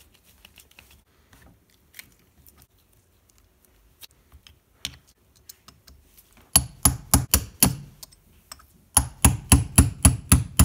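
Small hammer tapping metal on a cast-iron lathe apron to drive a part out. About halfway through comes a quick run of about five sharp, ringing taps, a short pause, then a faster run of taps, about five a second. Before the taps there are only light clicks of parts being handled.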